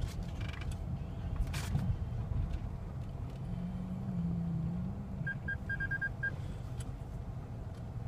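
Steady low rumble of a car's engine and road noise heard from inside the cabin. About five seconds in, a quick run of about seven short, high beeps sounds.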